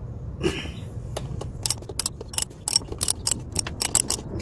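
Ratchet wrench clicking as it is worked back and forth on an oil filter wrench adapter, unscrewing the oil filter housing cap. A short rub about half a second in, then rapid, uneven clicks, about six a second.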